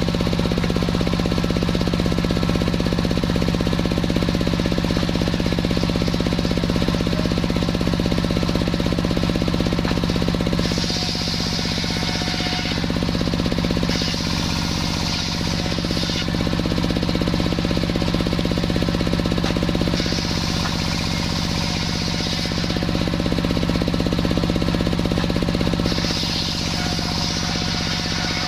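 Sawmill machinery sawing a waru log: a steady, fast-pulsing motor drone. Four times it is joined by a higher hiss lasting two to three seconds, as the blade cuts through the wood.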